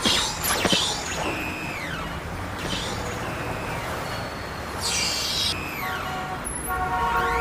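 Street traffic noise with falling whistle-like tones early on, then a vehicle horn sounding steadily near the end.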